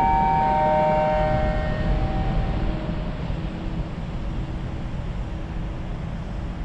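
Station public-address chime: descending notes that ring and fade out over the first few seconds, over a low steady rumble.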